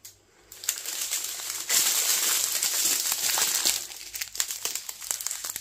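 Small plastic zip bags of diamond painting drills crinkling as they are handled and gathered up. It starts after a brief quiet, is loudest in the middle, and tapers off near the end.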